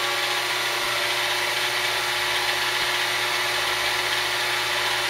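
Weiss 30LV milling machine's spindle motor and gearhead running steadily at top speed in high range: a steady whirring whine with several held tones.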